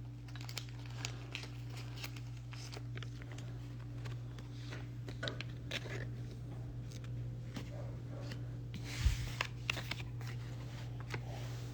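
Light crinkling, rustling and small crackles of a foil Pokémon booster pack and cards being handled, with a louder cluster of crackles about nine seconds in.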